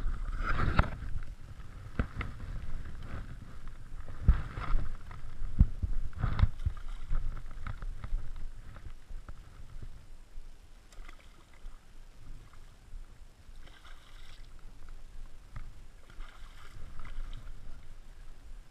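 Water splashing and sloshing as a hooked zander is played and landed at the edge of the water, with wind rumbling on the microphone. A few sharp knocks come in the first several seconds.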